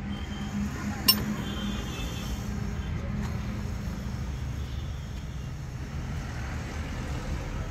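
A hand tool clinks once against metal in a Maruti Eeco's engine bay while the ignition coils are being fitted: one sharp metal click about a second in, over a steady low rumble.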